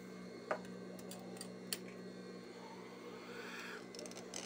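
Industrial sewing machine's motor humming steadily, with a few light clicks and taps of small metal parts, the sharpest about half a second in.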